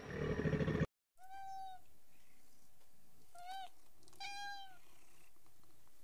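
A brief low rumble cuts off abruptly about a second in. Then a small spotted wild cat meows three times, high clear meows, the last two close together.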